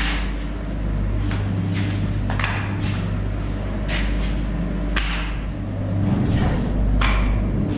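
A machine engine running steadily at a constant low hum, with several short knocks and scrapes of work on the pipe every second or so.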